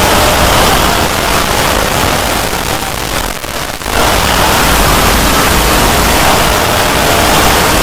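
Loud, harsh static-like noise with a brief drop about three and a half seconds in.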